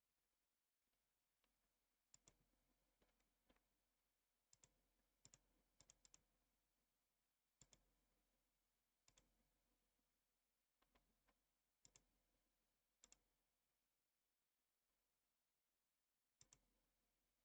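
Very faint computer mouse clicks over near silence: a dozen or so scattered sharp clicks, many in quick pairs.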